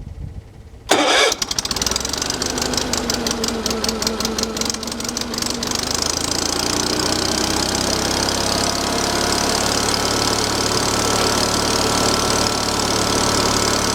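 Wood splitter's small gasoline engine starting on the key with the choke on, after sitting unused for a while. It catches suddenly about a second in, runs with a rapid pulsing for several seconds, then settles into a steady run.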